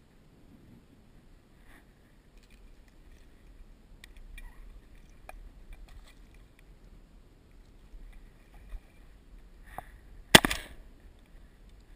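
A single shotgun shot about ten seconds in, loud and sharp with a brief ringing tail. Before it, only faint scattered clicks and rustling.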